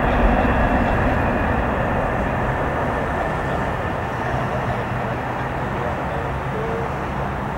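Twin-engine wide-body cargo jet's engines running as it rolls out along the runway after touchdown, a steady rumbling rush that slowly fades.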